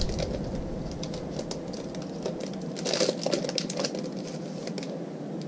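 Foil trading-card pack wrapper crinkling and crackling in the hands as it is opened and the cards are worked out, a thick cluster of crinkles about three seconds in.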